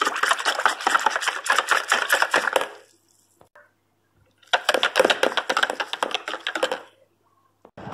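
Silicone-coated wire whisk beating egg yolks and water in a plastic measuring jug, a fast run of clicking and sloshing taps against the jug. It goes in two bouts, stopping for over a second about a third of the way in.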